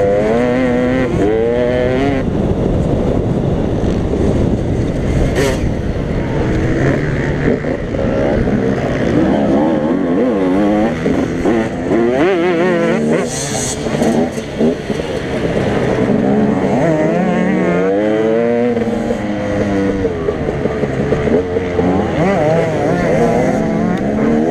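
Dirt bike engine revving up and down over and over as the rider works the throttle and gears over rough ground, heard up close from a camera on the bike.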